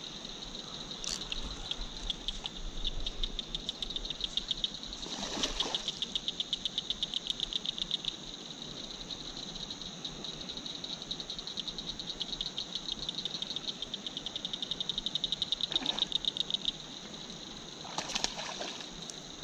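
Night chorus of frogs and insects: a steady high-pitched hum with long runs of rapid clicking calls, broken by two short rushing noises about five seconds in and near the end.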